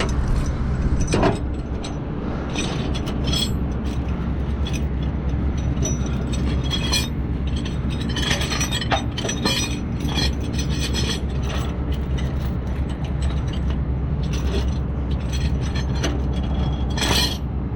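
Metal clinking, rattling and scraping in irregular bursts, from tow hooks and chains being handled, over the steady hum of an idling engine.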